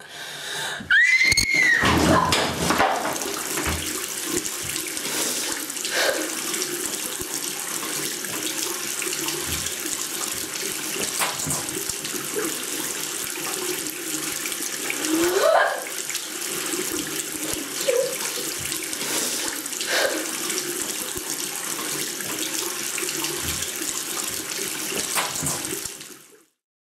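Bath tap running steadily into the tub as hair is rinsed under it, a loud, even rush of water. It starts suddenly about a second in and cuts off abruptly near the end, with a few brief squeaky glides heard over it.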